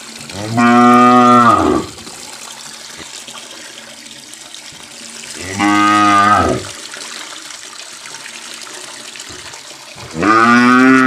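Cow mooing three times, each call about a second long and several seconds apart, over a steady trickle of water falling from a miniature hand-pump spout.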